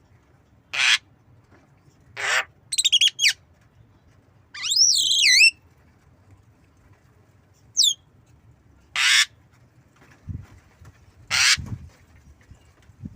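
Javan myna calling: four short harsh, rasping calls spaced through the clip, mixed with a quick run of whistled notes, a longer wavering whistle and a brief falling whistle. A couple of dull low thumps come near the end.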